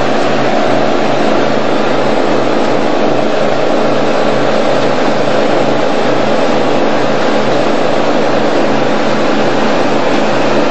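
Motorboat engine running steadily underway, a constant drone over a steady rushing hiss.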